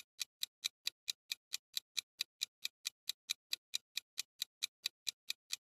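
Clock-like ticking countdown timer sound effect, crisp even ticks at about four and a half a second, stopping shortly before the end: the answer time running out on a quiz question.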